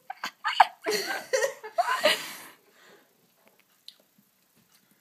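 A woman's wordless vocal reactions to an intensely sour Toxic Waste candy: short pitched cries and breathy gasps over the first two and a half seconds. After that it goes mostly quiet, with a few faint ticks.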